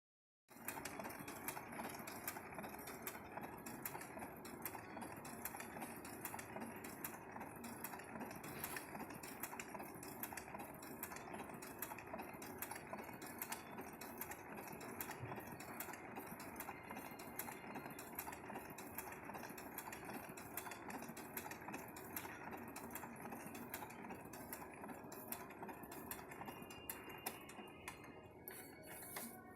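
A small machine running steadily with a fast, even clatter, then winding down and stopping near the end.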